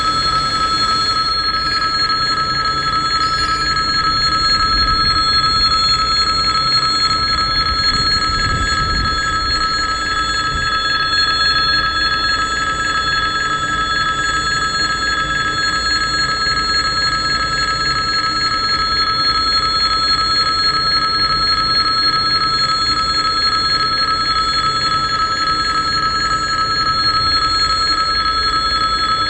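Electric warning bell of a Russian level crossing ringing continuously with a rapid, steady ring while the barriers are down: the signal that a train is approaching.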